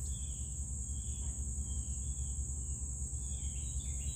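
Insects trilling in a steady high-pitched outdoor chorus, over a low steady hum, with faint short chirps now and then.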